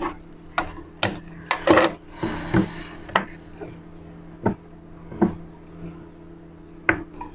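Fabric being handled and smoothed flat on a sewing table: a string of light knocks and taps, with a brief cloth rustle about two seconds in, over a faint steady hum.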